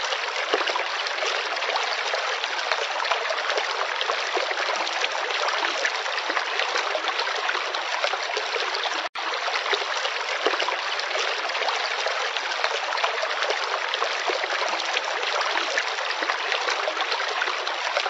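Babbling-brook track from a SOAIY white noise sound machine: steady trickling stream water. It cuts out for an instant about nine seconds in.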